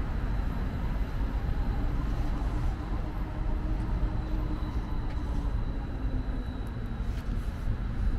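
Low, steady rumble of road traffic and vehicle engines at a roadside, with a faint engine drone that sinks slightly in pitch through the middle.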